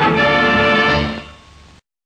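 Background music for the act, which falls away about a second in and cuts off abruptly to silence just before the end.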